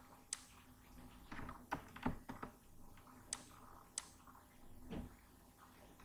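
Computer mouse clicking on a desk: a few sharp single clicks, just after the start and about three and four seconds in, with a short patch of softer knocks and rustles around two seconds in and a soft thump about five seconds in.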